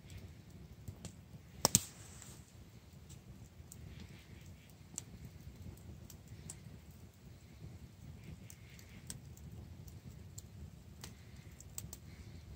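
Small wood campfire crackling, with scattered sharp pops and one loud pop about two seconds in.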